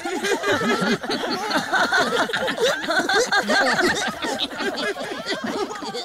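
Several cartoon characters laughing and giggling together, their voices overlapping.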